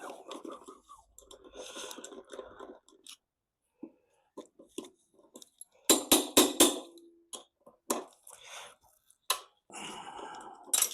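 Hand work on engine parts: rustling and handling noise, with a quick run of five or six sharp metallic clicks and clinks about six seconds in and a few single clicks after.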